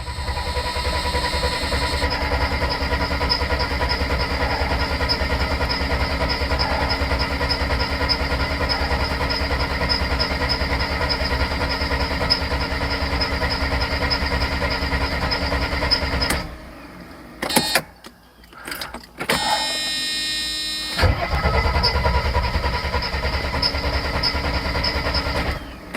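Mercedes 300SL engine being cranked by its starter for about sixteen seconds with an even, rapid pulsing, without catching and running, then stopping abruptly. Shorter bursts follow, and a steady running sound returns for the last few seconds. This is a no-start after a used fuel pressure regulator was refitted.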